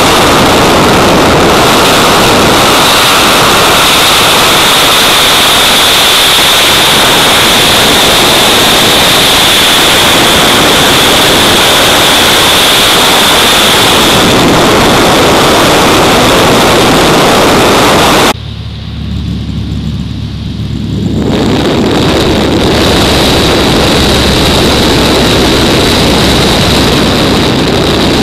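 Loud, steady cabin noise of a light propeller plane in flight: engine and propeller drone under a harsh rushing hiss. About two-thirds of the way through the sound changes abruptly, the hiss dropping away and a lower, even engine hum coming forward.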